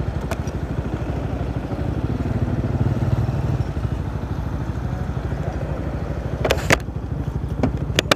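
Motorcycle engine idling at a standstill, a steady fast low pulse that swells slightly a few seconds in. Near the end come a few sharp clicks as the rider handles his helmet.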